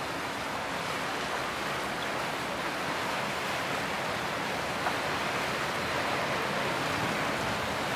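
Steady wash of waves, with wind noise on the microphone.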